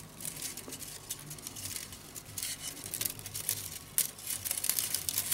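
Thin bamboo strips, about 3 mm wide, clicking and rustling against each other as they are threaded by hand through a woven bamboo cone: a run of small, quick ticks and crackles that grows busier near the end.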